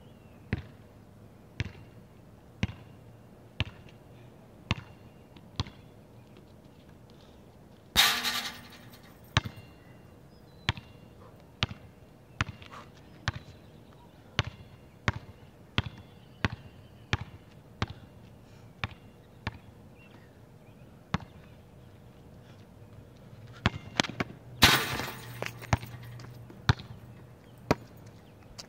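A basketball bouncing on an outdoor asphalt court as it is dribbled, about once a second at first and faster later. Twice, about eight seconds in and again near the end, a much louder metal clang rings on for a second or two as the ball is dunked through the metal hoop.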